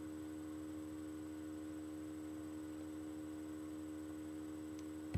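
Steady electrical hum made of several stacked steady tones, unchanging throughout, with a single sharp click at the very end.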